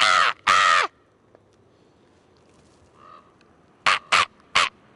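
A man yelling loud, drawn-out crow-like cawing calls: two long calls at the start, then three short sharp ones near the end.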